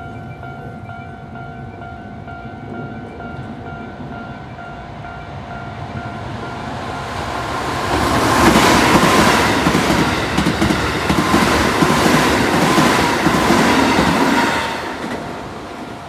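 Level-crossing warning bell sounding with steady electronic tones, then a Keikyu 1500-series electric train passes close by at speed from about eight seconds in: a loud rumble of wheels on rails with a faint whine sliding slightly down in pitch, fading near the end.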